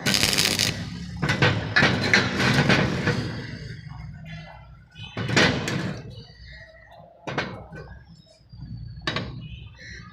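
Metalworking noise: irregular bursts of harsh noise and knocks, one longer stretch in the first three seconds, then three short bursts.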